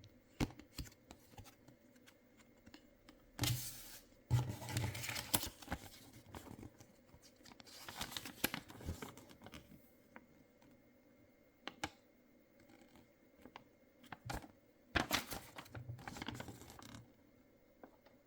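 Packaging of a giant chocolate egg being handled and opened: several bursts of crinkling and tearing, with scattered small clicks and taps in between.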